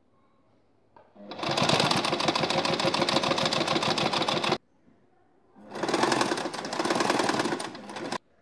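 Household sewing machine stitching in two runs of rapid needle strokes, each about three seconds long, with a short pause between them. Each run starts about a second into its stretch and stops abruptly.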